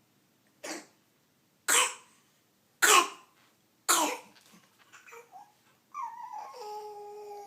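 A cat coughing four times in short, sharp hacks about a second apart, then a long meow that falls in pitch near the end.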